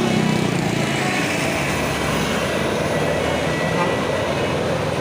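A large bus driving past on the road, a steady roar of engine and tyre noise, with people talking nearby.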